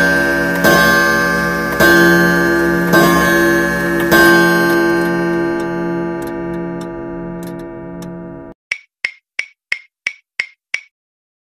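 A quiz countdown-timer sound effect. Bell-like tones are struck about once a second, stop a few seconds in and ring on until they cut off. Then seven sharp clock ticks follow at about three a second, counting down to the answer.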